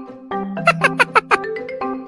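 Light background music with a marimba-like plucked melody. About a second in, a quick run of about six short, high squeaky notes sounds over it.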